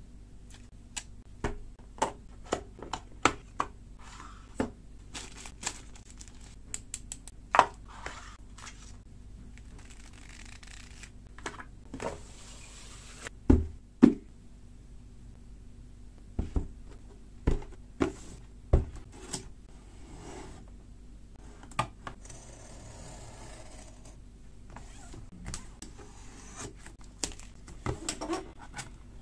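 Handling noise from unboxing: clicks and taps of a smartwatch and cardboard product boxes being picked up and moved, with two louder knocks about halfway through and a short stretch of rustling packaging later on.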